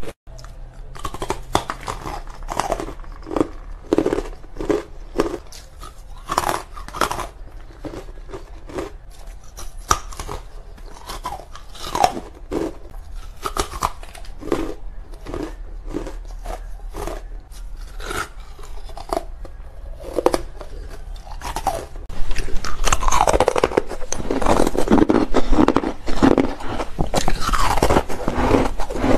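Chalky white carbonate ice being bitten and chewed close to the microphone: a run of sharp, crisp crunches that grows louder and busier over the last several seconds.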